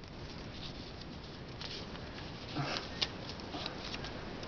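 Faint rustling and small light crinkles of a folded paper slip being opened, with a brief faint voice-like sound about two and a half seconds in.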